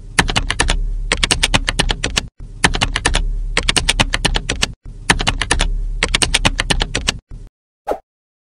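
Rapid keyboard typing in three runs of about two seconds each with brief breaks between, over a low hum; it stops about seven and a half seconds in, and a single click follows.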